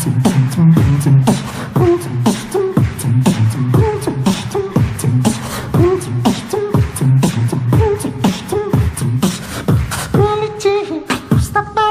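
Human beatboxing, made with the voice alone through an unprocessed microphone: a steady beat of sharp mouth-made kick and snare hits over a low hummed bass. Near the end, held sung tones come in over the beat.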